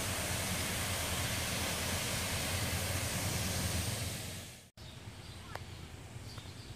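Steady rushing of water pouring over a mill dam's spillway, with a deep rumble underneath. It fades and cuts off about four and a half seconds in, leaving quieter outdoor ambience with a few faint chirps.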